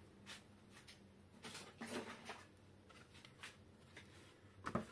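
Faint handling noises: the plastic amplifier panel with its circuit board being picked up and turned over, with light scrapes and a few soft knocks, the last one a little louder near the end.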